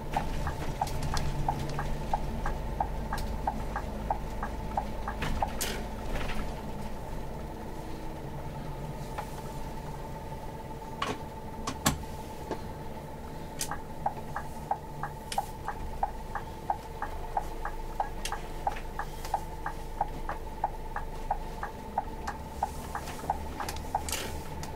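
Scania OmniExpress bus heard from the driver's seat while driving: a low engine and road rumble under an even ticking of about two clicks a second and a faint steady whine. A few louder knocks stand out, the loudest about midway.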